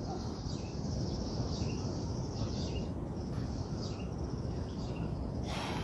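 Rural outdoor ambience: a steady high insect buzz with scattered short bird chirps over a low background rumble. A brief noisy rustle comes near the end.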